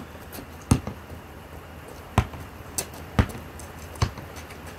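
Basketball bouncing on hard ground: four sharp thuds about a second apart, with a few fainter knocks between them.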